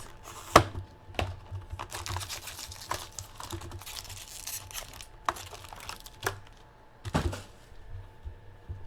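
Close-miked handling noise: scattered clicks and knocks with a stretch of rustling, as hands move things about on a table.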